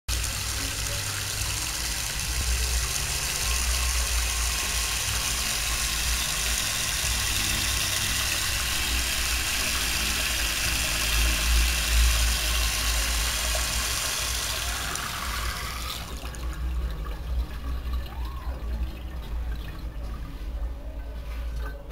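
Tap water spraying through a clip-on water-saving sprinkler aerator into a sink basin, a steady hiss. About two-thirds of the way through the hiss drops away, leaving a quieter, uneven sound.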